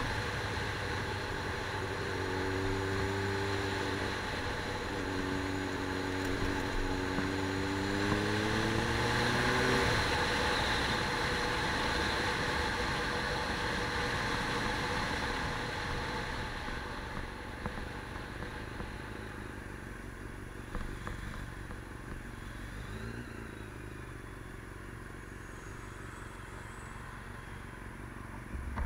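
A motor vehicle engine running and rising in pitch as it accelerates for several seconds, then cutting out. The remaining noise fades to a quieter steady background.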